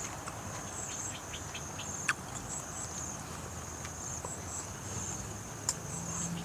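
Insects chirring steadily in the background, a high, pulsing trill with no break, with a few faint clicks over it.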